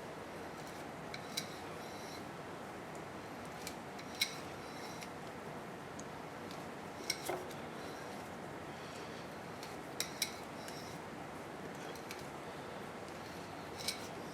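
Sparse sharp metallic clicks and clinks, some in quick pairs, over a steady background hiss: a tap and tap wrench being worked by hand through a 1/2-13 hole in a metal plate.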